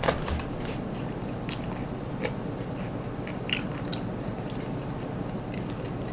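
Fried chicken being bitten and chewed close to the microphone: scattered short, crisp crunches and crackles of the coating.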